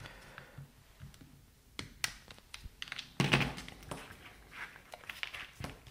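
Side cutters snipping plastic cable ties, a few short sharp clicks, with light knocks and taps as the tool is put down and the air suspension compressor is handled; the loudest knock is about three seconds in.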